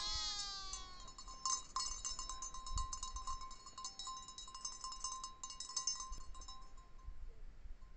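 A sheep bleats once at the start, one falling call, while small livestock bells clink and ring on and off.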